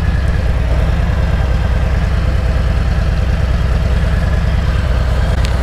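Harley-Davidson Road Glide Special's Milwaukee-Eight V-twin engine running steadily at low revs as the bike pulls out slowly from a stop.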